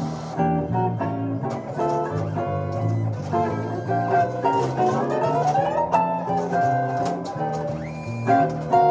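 Jazz guitar and electric bass duo playing a ballad standard: picked guitar lines over a bass line, with a quick rising run of notes about four to six seconds in.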